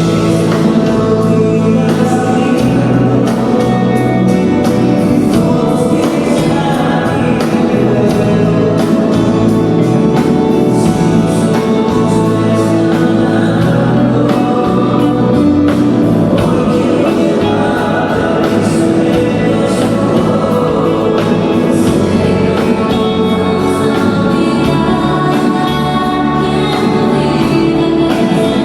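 Music with singing over instruments and a steady beat.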